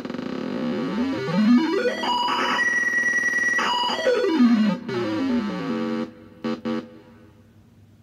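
Arduino Nano digital oscillator noise maker playing an electronic tone as its rotary-encoder knob is turned. The pitch glides up, holds, then glides back down. It cuts off about six seconds in and ends with two short blips.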